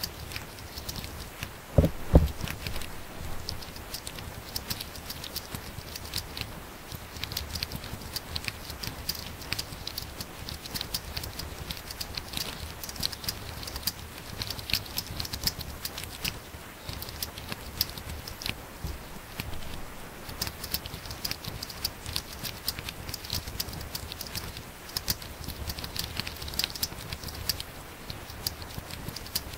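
Fast typing on a laptop keyboard: a dense, continuous patter of key clicks. Two heavier thumps stand out about two seconds in.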